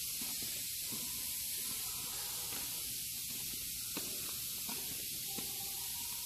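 Steady high hiss with a few faint ticks.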